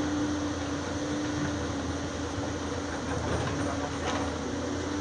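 Caterpillar C7.1 diesel engine of a CAT 320D excavator running steadily while the arm is worked, a low rumble with a steady hum that fades after about a second and a half.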